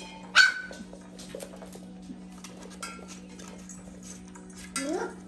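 Puppies playing around a chain-hung sway board: a sharp metallic clank with brief ringing about half a second in, scattered light clicks and clinks of chains and claws on the wooden floor, and a short rising puppy yelp near the end. A steady low hum runs underneath.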